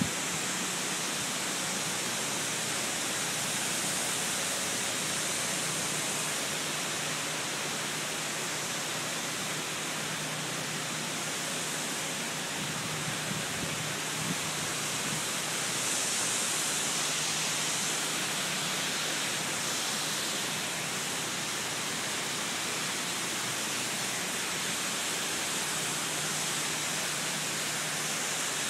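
Hangar foam fire-suppression system discharging through floor grate nozzles: a steady rushing hiss of foam and water spraying out, with a faint low hum underneath.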